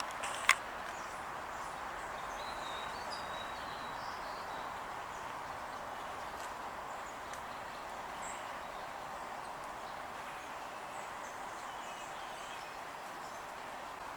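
Small songbirds giving a few faint, high chirps over a steady background hiss, with one sharp click about half a second in.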